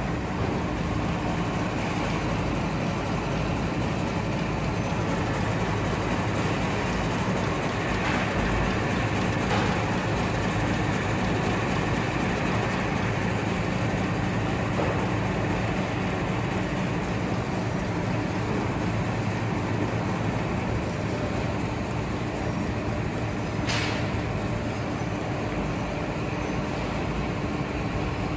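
Steady whirring rush of a batch of humidifiers running together on an endurance test, with a low steady hum and two faint clicks, about ten seconds in and near the end.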